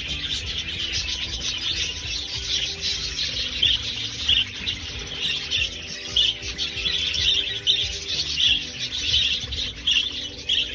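Flock of budgerigars chattering together: a dense, continuous twittering made of many overlapping short chirps.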